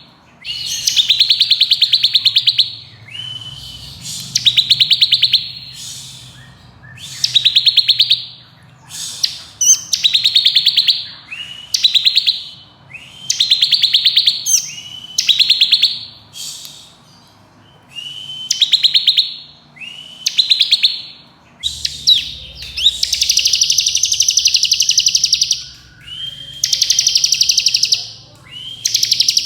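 Bar-winged prinia (ciblek kristal) singing its rapid buzzing 'ngebren' trill in repeated phrases of about a second, each opening with a short rising note. Near the end comes one longer phrase of about three seconds.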